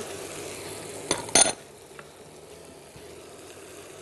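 A glass bowl clinks twice against the rim of a frying pan about a second in as diced bell peppers are tipped in, over a low steady sizzle of food frying in the pan.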